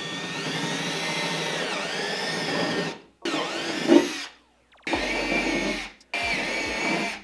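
Cordless drill with a 1/4-inch bit drilling up through a snowmobile's bottom pan, run in four bursts: a long one of about three seconds, then three shorter ones. Its whine dips in pitch as the bit bites, with a knock about four seconds in.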